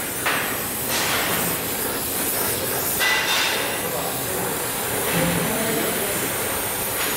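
Oxy-fuel gas welding torch flame hissing steadily while brass filler is melted onto a steel-pipe-to-copper-tube joint.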